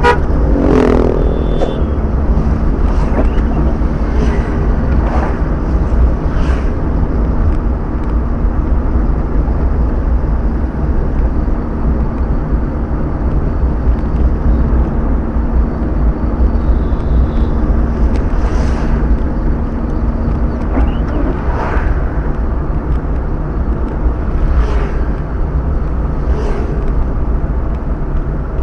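Car cruising on a wet highway, heard from inside the cabin: a steady low rumble of engine and tyres, with a steady hum that stops about three-quarters of the way through and brief louder swishes now and then.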